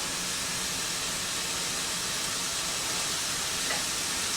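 Chopped onions and bell peppers sizzling steadily in hot oil in a skillet as they brown over high heat.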